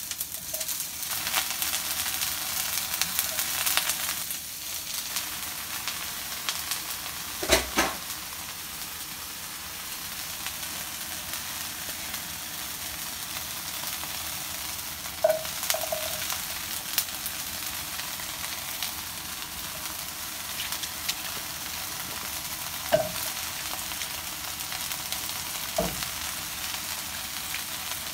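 Green beans, broccoli and Brussels sprouts sizzling in hot oil in a frying pan, a steady hiss with a few short knocks now and then, the loudest about seven and a half seconds in.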